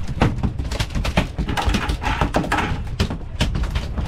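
Irregular knocks and clatter on a fishing boat over a steady low rumble.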